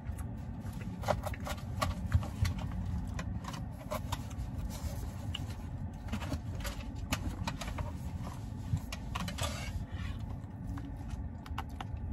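Plastic fork and takeout containers being handled while eating, making scattered light clicks and taps over a steady low background rumble.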